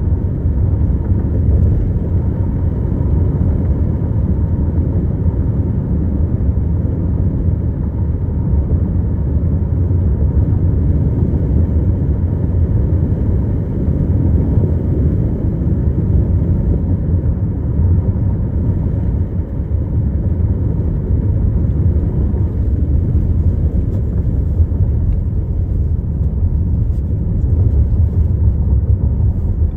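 A car driving along the road: the steady low rumble of tyres and engine.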